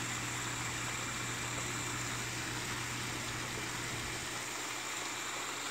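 Pond fountain bubbler splashing steadily, with a low steady hum underneath.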